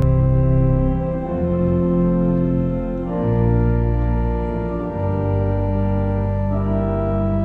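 Church organ playing slow, sustained chords over a deep bass, the chord changing every second or two.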